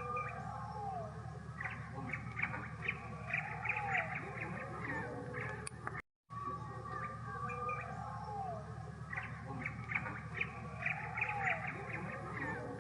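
Birds calling: many short chirps and a few arching squawks over a steady low hum. The sound cuts out for a moment about six seconds in, then the same run of calls repeats.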